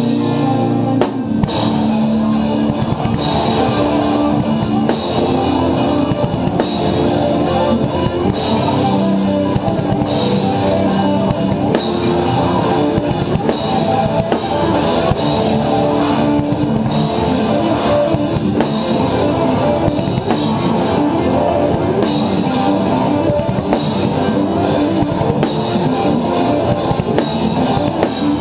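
Progressive metal played on a drum kit with distorted electric guitars, loud and dense, with a brief break about a second in.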